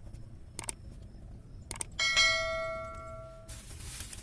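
Subscribe-button animation sound effect: two short mouse-style clicks, then a bright bell ding about two seconds in that rings out for about a second and a half, followed by a brief hiss.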